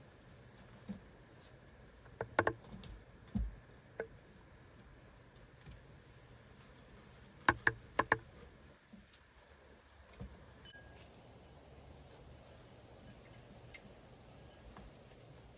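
Raccoons feeding, making sharp clicks and taps in two short clusters, about two seconds in and again near the middle, over a faint steady background.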